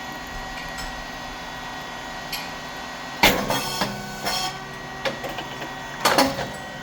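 A puffed rice cake machine running with a steady hum from its motor and hydraulic pump. About three seconds in, and again near the end, a loud pop and a short rattle come as the heated moulds open and the puffed rice cakes burst out.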